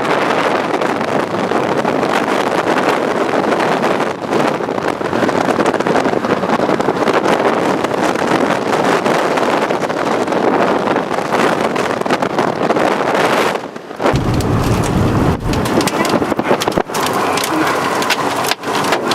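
Strong wind buffeting the microphone in a steady rush of noise. About two-thirds of the way through it changes to a deeper rumble broken by a few sharp clicks.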